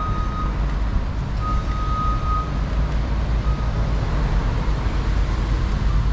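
Road traffic running steadily along a city street, with a heavy low rumble, and an electronic beep about a second long repeating roughly every two seconds, dying out a little over three seconds in.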